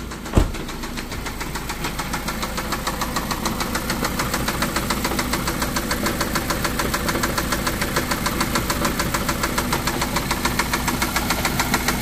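A 2014 Ford Focus SE's four-cylinder engine idling with a fast, evenly spaced knock. The owner traces it to the bottom end: rod knock in a worn engine with about 447,000 miles. A car door shuts once just after the start.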